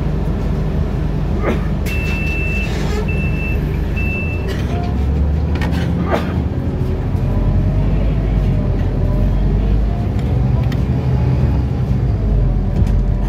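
Cabin noise of a Scania articulated city bus under way: steady low engine and road rumble. About two seconds in come three short high beeps, and a couple of sharp knocks or rattles are heard.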